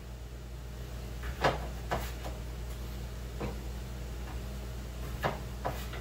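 Kitchen knife cutting baby gold potatoes into halves and quarters on a cutting board: about six short knocks at uneven intervals as the blade goes through and strikes the board, over a steady low hum.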